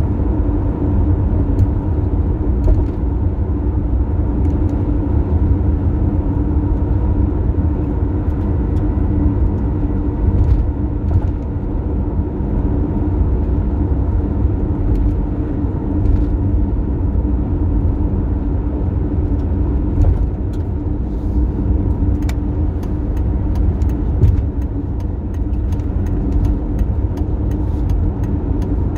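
Toyota Tercel driving at highway speed: a steady low drone with a constant hum, and sharp short ticks or rattles that come more often in the second half. The recording is meant to capture an abnormal noise while driving on the highway.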